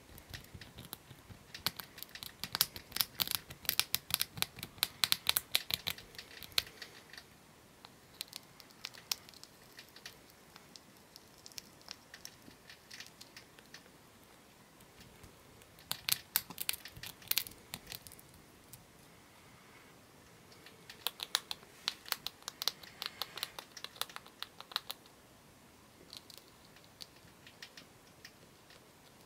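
A degu gnawing and crunching a small treat held in the fingers: rapid dry clicking chews in three dense bouts, with lighter nibbling between.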